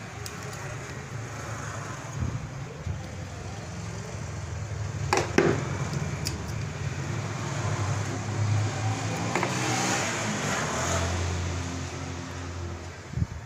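A motor vehicle engine running, growing louder through the middle and easing off near the end, with a sharp click about five seconds in.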